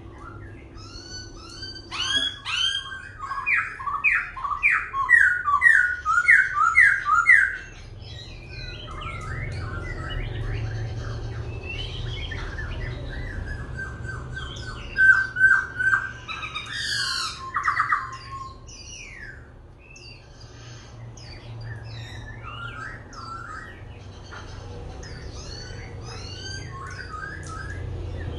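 Black-throated laughingthrush singing, continuously switching between varied phrases: a loud run of rapid repeated notes about two seconds in, another loud burst around the middle, and softer warbled and chirping phrases in between.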